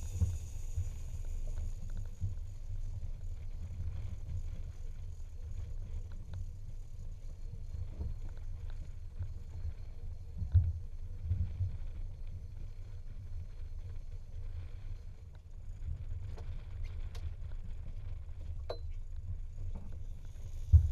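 Low, uneven rumble of wind and sea around a small boat, with a few sharp knocks on the boat, the loudest about ten seconds in and another just before the end.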